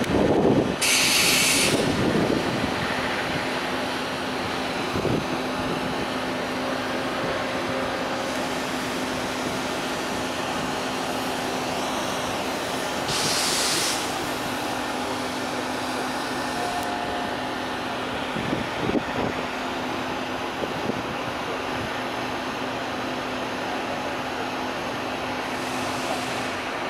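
Panama Canal lock machinery running with a steady hum and a steady low tone as the lock gates open, broken by a short hiss about a second in and again about 13 seconds in.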